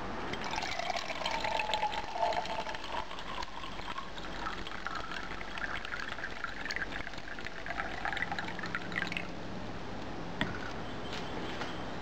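Water poured from a plastic measuring jug into a tin can, a steady pour that rises in pitch as the can fills and stops about nine seconds in.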